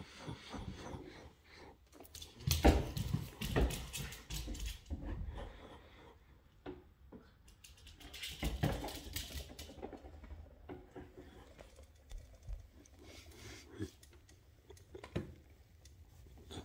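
A miniature schnauzer's claws clicking and tapping on a hard plank floor as it runs about, in irregular flurries. The two loudest flurries come about three seconds in and again about eight seconds in, with scattered single clicks after.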